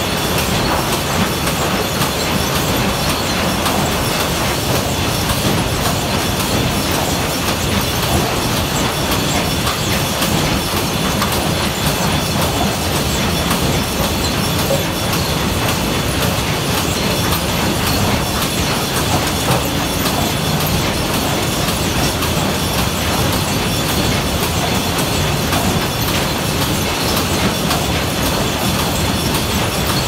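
Sawmill lumber-handling machinery running: a chain transfer conveyor carrying boards past a fencing and positioning unit, making a steady, dense rattle and clatter with a faint high whine.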